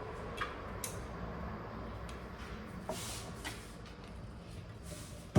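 Rustling and a few light clicks and taps of kitchen items and their packaging being handled, with a sharp knock at the very end.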